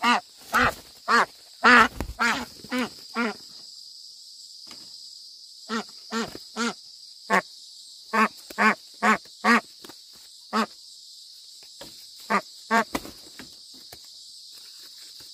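An animal calling in short, pitched calls, in runs of several and then pausing, over a steady high hiss.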